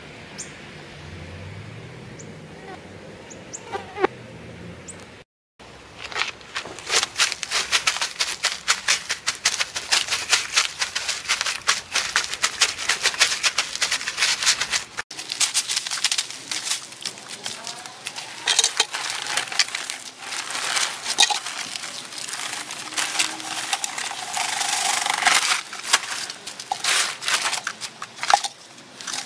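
Dry grass seed stalks crackling and rustling as they are trodden underfoot in soft-soled clogs on a plastic tarp, threshing out the seed. Many quick, closely spaced crackles, after a few seconds of low hum at the start.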